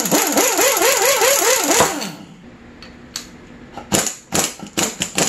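Air impact wrench hammering for about two seconds, its pitch wobbling, as it runs down the bottom bolt of a dirt bike fork leg. A few short sharp sounds follow near the end.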